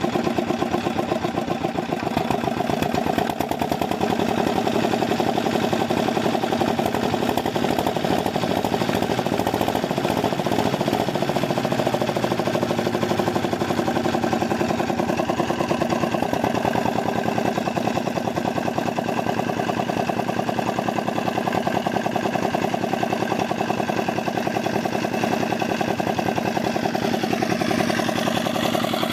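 Old Petter diesel engine running steadily, with a rapid, even firing beat.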